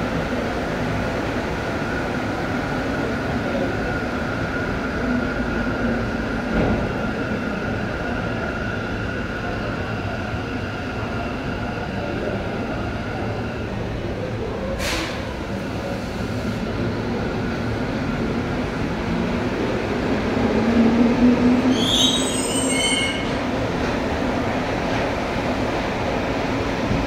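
Mexico City Metro train pulling into the station and slowing toward a stop, with a steady rumble and a faint whine. There is a sharp click about halfway, and a quick run of falling high squeals as it brakes about four fifths of the way through, the loudest moment.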